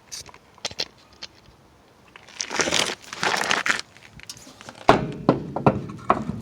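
A new wheel and tire being handled and fitted to the front hub of a 1975 Chevy C10 pickup: scattered clicks, a scraping rush about two and a half seconds in, then a run of knocks near the end.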